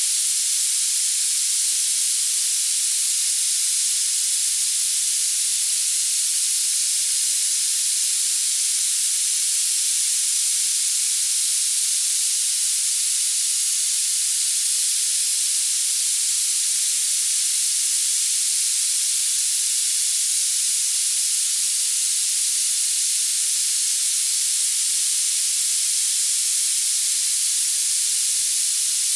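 Steady, high-pitched hiss of noise with no low end, strongest in the high treble and unchanging throughout. It is a tinnitus masking sound.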